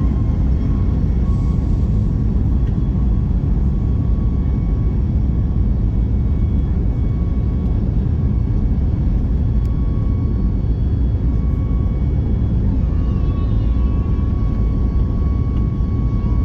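Airliner's engines and airframe producing a steady low rumble, with a thin high whine running over it.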